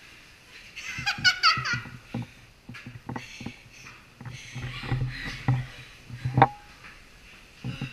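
A woman laughing in quick high-pitched bursts about a second in, then footsteps on stone spiral stairs in a narrow, echoing stairwell.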